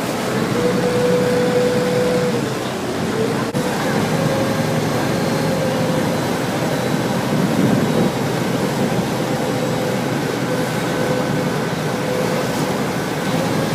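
A river boat's engine running steadily under way, a droning hum with a held tone, over the rush of wake water churning along the hull.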